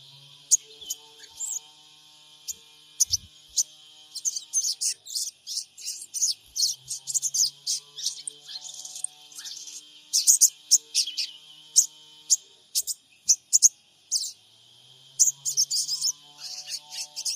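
Crimson sunbird (sogon) calling: rapid runs of sharp, high-pitched chirps and twitters in clusters, densest around the middle and near the end, over a steady high hiss.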